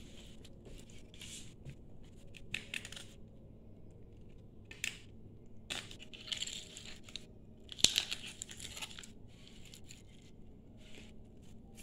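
Fillet knife cutting through a small blue rockfish on a plastic cutting board: a series of short, irregular scraping cuts as the blade works through skin, scales and bone. A sharp click about eight seconds in is the loudest sound.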